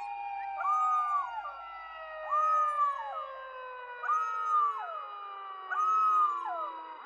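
A siren winds down, its tones falling slowly in pitch. Over it a dog gives four short, evenly spaced howls, each rising and then falling.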